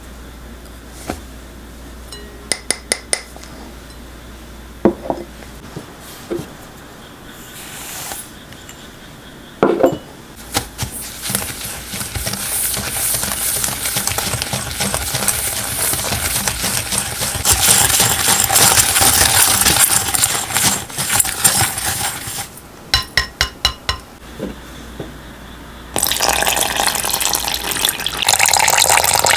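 Potato starch tipped into a large glass mixing bowl, with light clinks of glass on glass, then a spoon stirring and scraping the dry starch and sugar around the glass bowl for about ten seconds. After a quick run of clinks, water is poured steadily into the bowl near the end.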